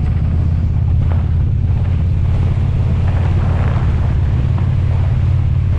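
Motorcycle engine running steadily at cruising speed, with wind rushing over the microphone.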